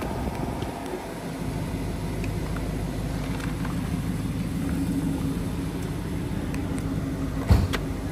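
The BMW X6 xDrive50i's 4.4-litre twin-turbo V8 idling, a steady low hum heard from inside the cabin. A single knock sounds near the end.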